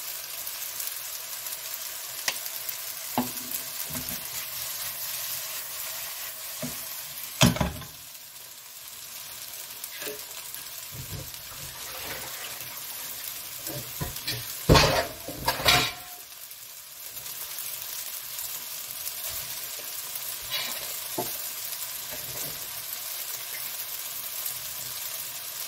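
Spaghetti and sliced garlic frying in canola oil in a frying pan on a gas burner, a steady sizzling hiss. Sharp knocks come about seven seconds in, and a louder burst of clattering around the middle.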